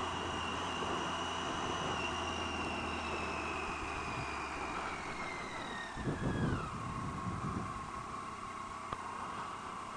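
Triumph Tiger 800 XRt's three-cylinder engine and riding noise heard from the rider's position, with a high whine that falls slowly in pitch for about seven seconds and then holds steady. A brief louder rumble comes about six seconds in.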